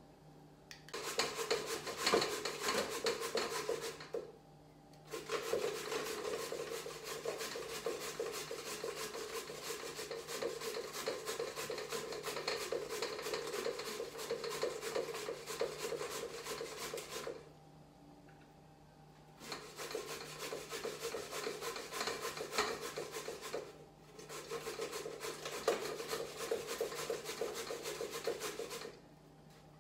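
Pumpkin being grated by hand on a Jamaican grater into a pot: fast, steady rasping strokes, broken by three short pauses.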